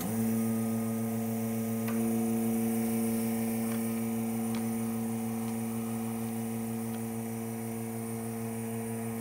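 Vacuum pump for a vacuum clamping jig switching on and running with a steady electric hum, drawing vacuum to hold the workpiece. A few light knocks of the plywood pieces being handled.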